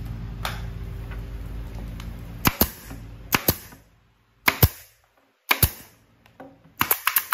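Wooden subwoofer cabinet panels being nailed together: about ten sharp, cracking nailing impacts, some in quick pairs and a fast run near the end. Under the first half runs a steady low machine hum that stops about four seconds in.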